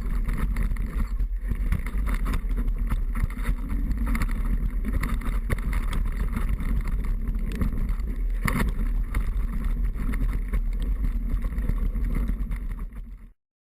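Wind rushing and buffeting over a camera microphone during a downhill mountain-bike descent, a steady low rumble that cuts off suddenly near the end.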